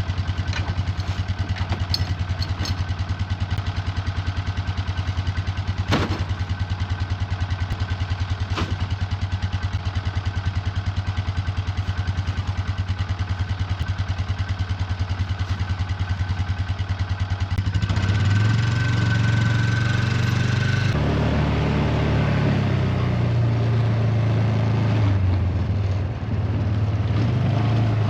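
Tractor engine running steadily, then revving up about two-thirds of the way through, its pitch going up and down as it works. A couple of sharp knocks or clanks sound a few seconds in.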